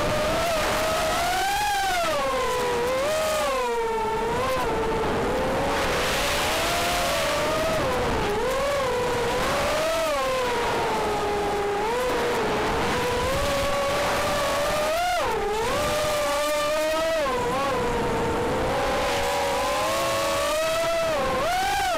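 Armattan F1-4B quadcopter's Cobra 2204 2300 kV brushless motors spinning HQProp 4x4.5 propellers: a whine that swoops up and down in pitch with every throttle change, over a steady rush of air.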